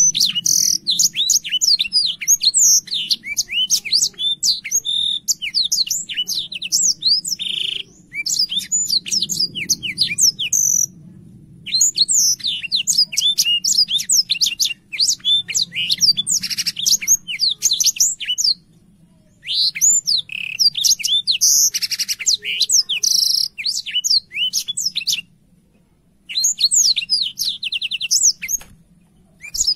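Blackthroat (black-throated canary) singing a fast, rapid song of high chirps, rolls and trills, in long phrases broken by brief pauses of about a second.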